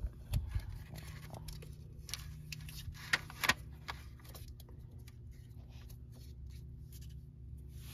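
Newspaper masking crinkling and rustling as a hand presses it down around a brake caliper, with a few sharp crackles in the first half, over a steady low background hum.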